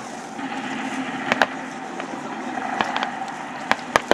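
Distant gunfire from a WWII battle reenactment: scattered single shots, a pair about a second and a half in and a few more toward the end, over a steady background hum.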